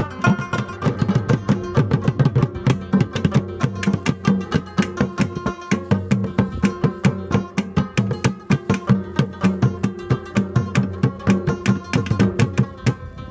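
Pashtun folk music: a rabab plucked in a quick melody, with a laced barrel drum and a mangay (clay pot drum) beating out the rhythm.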